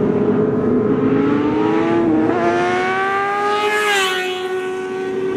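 Sport motorcycle approaching at speed, its engine note climbing in pitch, then passing close by about four seconds in, where the pitch drops.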